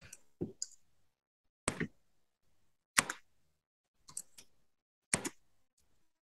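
Computer keyboard typing in short bursts of a few keystrokes, about once a second, with brief pauses between.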